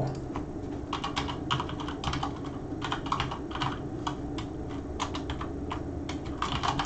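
Typing on a computer keyboard: short runs of quick keystrokes with brief pauses between them, starting about a second in.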